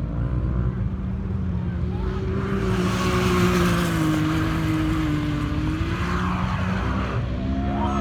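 Can-Am Maverick X3 side-by-side's turbocharged three-cylinder engine running under steady throttle, its note drifting slightly up and down, while a rushing noise swells and fades in the middle.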